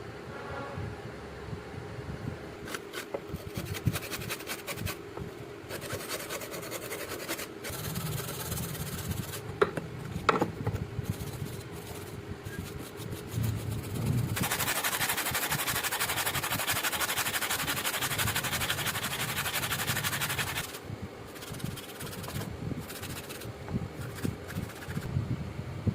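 A rusty steel knife blade being rubbed and scraped to take off rust, in uneven strokes, with a couple of sharp knocks about ten seconds in. Past the middle comes a louder, steadier stretch of rasping that lasts about six seconds and then stops.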